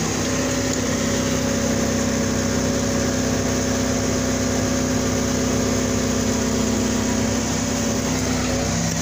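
Skid steer engine running steadily while it lifts against the bulldozer's hardbar on its forks; the pitch briefly wavers near the end.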